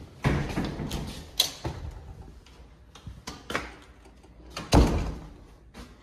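A door being opened and passed through, with a series of latch and handle clicks and knocks, then swinging shut with a heavy thud about five seconds in.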